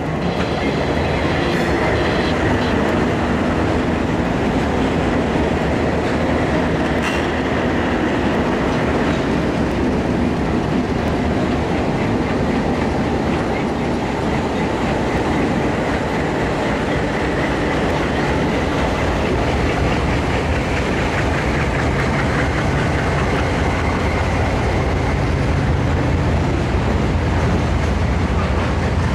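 Freight train led by Alco diesel locomotives passing close by, with the engines running and steel wheels rolling over the rails. Near the end covered hopper cars roll past, the wheels clicking over rail joints.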